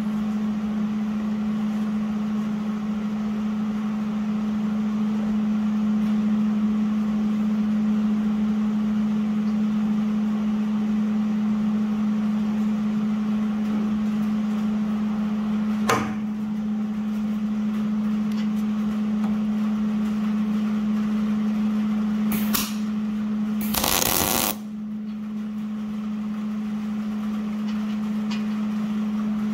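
MIG welder running with a steady hum while welding a bolt onto a wood chipper drum, the arc crackling. A sharp click about halfway, and a short louder burst near the end, after which the sound drops off.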